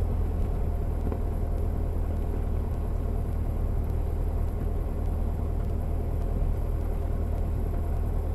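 Cessna 172 Skyhawk's piston engine and propeller running steadily at low taxi power, heard from inside the cabin as a deep, even drone, before the takeoff power-up.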